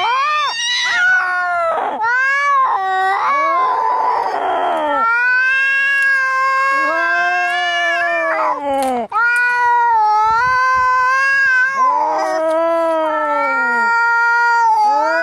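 Angry cats caterwauling as in a fight: a run of long, wavering yowls that rise and fall in pitch, with a harsh hissing cry about four seconds in.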